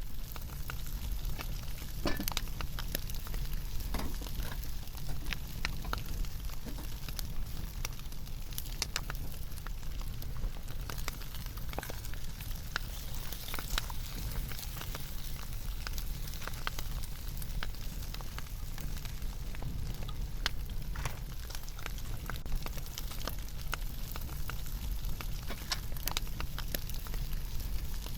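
Food frying in a pan over a wood campfire: a steady sizzle with many scattered crackles and pops.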